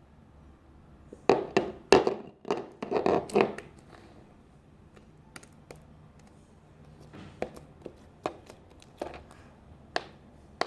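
Sticky, runny slime being squeezed and pulled apart by hand: a quick run of wet clicks and squelches about a second in, then scattered smaller clicks.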